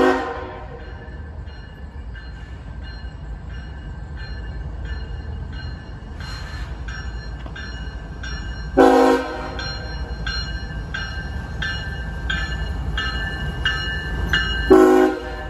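Approaching CSX diesel locomotive sounding its air horn in three short blasts, at the start, midway and near the end. Between the blasts a bell rings steadily about three times a second over the low rumble of the train.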